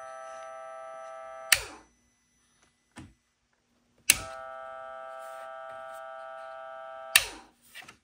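Sea-Doo's electric bilge pump running with a steady whine. A click of the new rocker switch cuts it off about one and a half seconds in, another click about four seconds in switches it back on, and a third click near the end stops it again.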